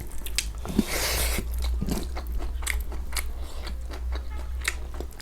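Close-miked chewing and biting of food: a run of short mouth clicks, with a steady low hum underneath.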